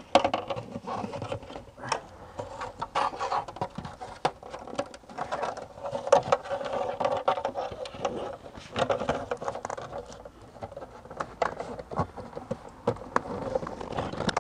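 Grey plastic lower dash trim panel in a BMW E46 footwell being handled and worked into place: plastic rubbing and scraping against the interior, with frequent irregular clicks and knocks.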